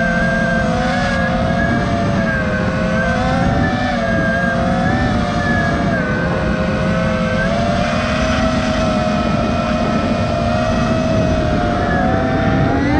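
Electric motors and propellers of a 6S FPV quadcopter (four Lumenier ZIP 2407 1700Kv brushless motors on 5-inch props), heard from the onboard camera: a steady whine over a rush of wind and prop wash. The pitch wavers gently with throttle and creeps up near the end.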